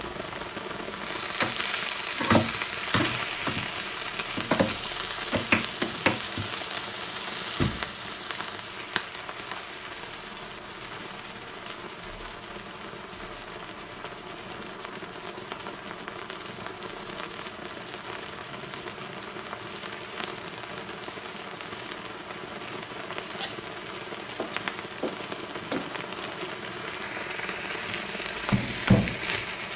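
Hot metal cube, heated to about 1000 degrees, sinking into the wax of a glass jar candle. The melting wax sizzles and crackles with scattered pops; the hiss is strongest over the first several seconds, then settles to a steadier, quieter sizzle. Near the end come a few knocks as a rod is pushed down into the jar.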